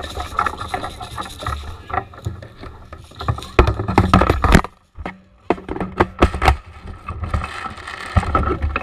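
Irregular rustling, scraping and knocks with a low rumble, loudest just before the middle, where the sound cuts out briefly and then resumes.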